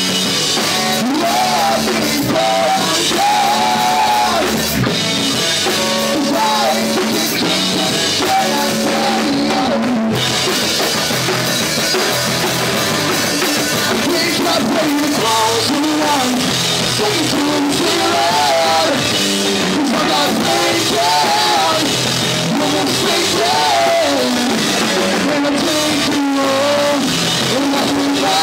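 A live rock band playing loud: drum kit and electric guitars, with a singer's voice over them.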